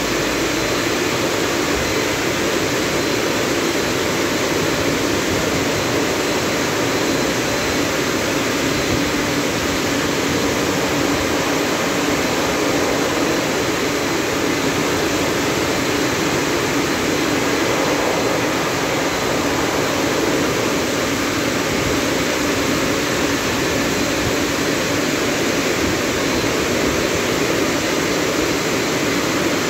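TopWash rollover car wash dryer blowers running, a loud, steady rush of air from the gantry's top dryer nozzle blowing over the car, with a faint high whine.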